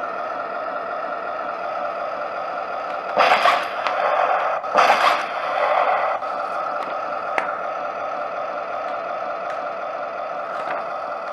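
RC model tank running with a steady hum, with two loud, noisy bursts about a second and a half apart a few seconds in.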